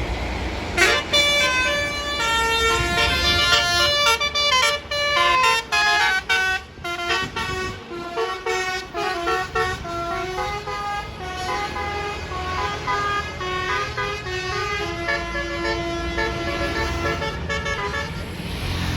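A bus's telolet horn playing a long stepped melody of bright trumpet-like notes, with a quick run of short repeated notes in the middle. The bus's engine rumbles underneath.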